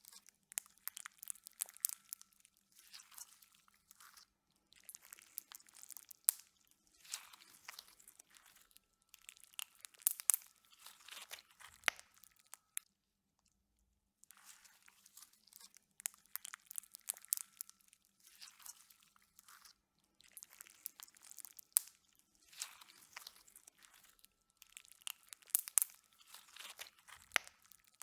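Slime being squished and worked by hand, making wet crackling and popping clicks in clusters a second or two long with a few sharper snaps. There is a short silent pause about halfway through.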